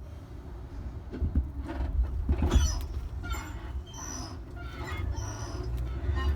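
Electric commuter train running, with a low rumble, clattering knocks, and many short high squeaks.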